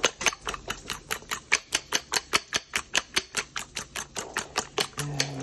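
Metal fork beating eggs in a ceramic bowl, clinking against the bowl in a quick, even rhythm of about five or six strokes a second.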